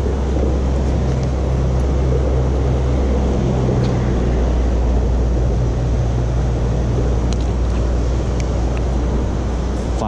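Steady low rumble of traffic on a highway bridge overhead, mixed with the rush of creek water pouring over a low wall, with a few faint clicks late on.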